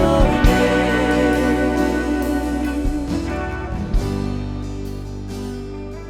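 Worship band music closing a song: a held, wavering note in the first second or so, then sustained instrumental chords that grow gradually quieter.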